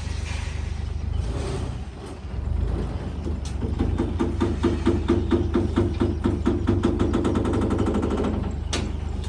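Heavy diesel machinery running with a steady low rumble; from about three seconds in, a rapid even clatter of about eight knocks a second runs for some five seconds, then a single sharp knock near the end.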